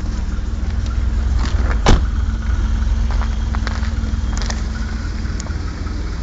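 BMW E34 535i's M30B35 3.4-litre straight-six running steadily at idle. A single sharp knock sounds about two seconds in.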